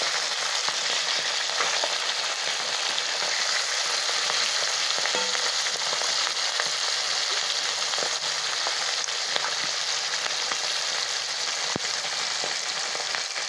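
Tengra catfish shallow-frying in mustard oil in a karahi: a steady sizzle with scattered small pops and crackles, one sharper pop near the end.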